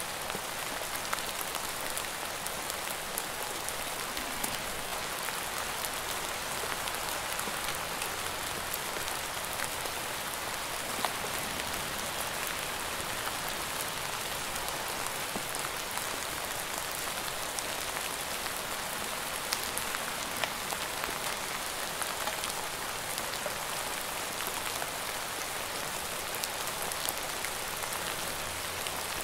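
Steady rain: an even hiss with scattered sharp ticks of individual drops striking.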